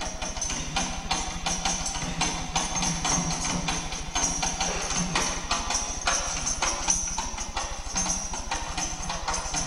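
Rhythmic percussion music with rapid jingling, tambourine-like strikes, over a steady low hum.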